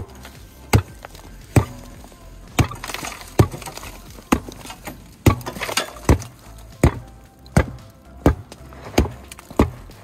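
About a dozen sharp metal knocks in a steady rhythm, roughly one every three-quarters of a second, made while working on the truck's jack and wheel hub.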